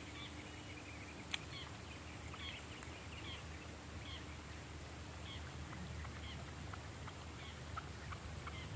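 Faint open-air ambience: a low wind rumble with scattered short bird chirps and a steady high-pitched whine, and a single sharp click about a second in.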